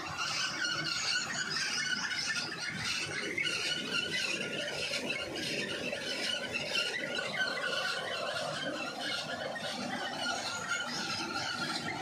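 Small diesel engine running steadily and belt-driving a tube-well water pump, with a continuous high-pitched squeal over the engine noise.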